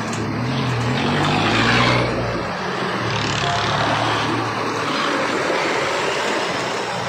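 Modified off-road 4x4s driving slowly past at close range, one after another: a steady low engine drone whose pitch rises about a second in as one pulls away, loudest around two seconds in, over a constant rushing noise.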